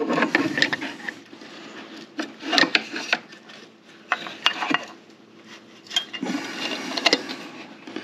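Hands handling a pressed-metal valve cover and fitting it back onto a Honda EU3000i generator's engine: irregular light clicks, taps and scraping of metal against metal as it is worked into place.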